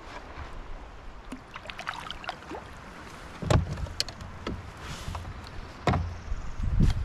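Paddling on a river: small splashes and drips from the paddle over a steady wash of water, with two louder thumps, one about halfway through and one about a second before the end.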